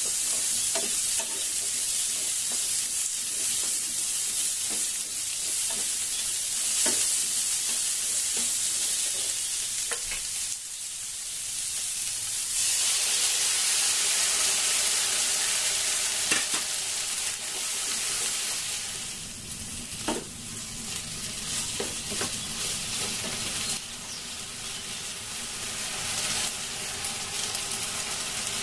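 Red and green capsicum and onion stir-frying in oil in a stone-coated frying pan: a steady sizzle, with a wooden spatula scraping and knocking against the pan. About halfway through, a cornflour-thickened sauce is poured in and stirred through, and the sizzle then grows quieter.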